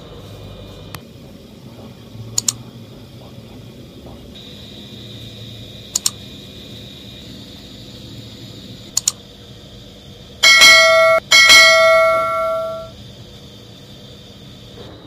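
Several mouse-click sound effects, some in pairs, then two loud rings of a bell about ten seconds in, the second fading out over a second or so. This is the sound of a subscribe-and-notification-bell button animation.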